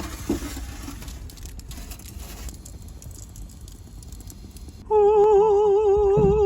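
A low steady hiss, then about five seconds in a loud voice suddenly holds one long note with a regular wavering vibrato.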